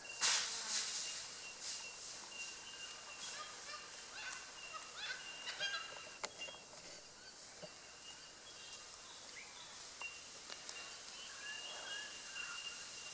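Young red deer stag roaring once right at the start, a rough, pulsed bellow of about a second that fades away. Small birds chirp and whistle faintly afterwards.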